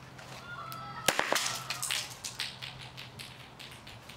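A brief thin whistle-like tone, then a sharp crack followed by about two seconds of scattered crackling pops that die away: a small firecracker going off.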